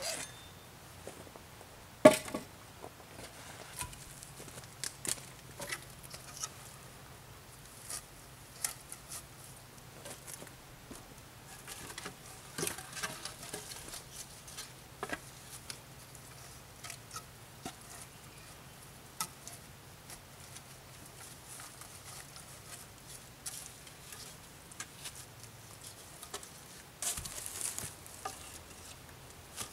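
Scattered rustling, scuffing and small clicks and knocks from a person moving about and handling gear on a forest floor of bark and twigs, with one sharp knock about two seconds in.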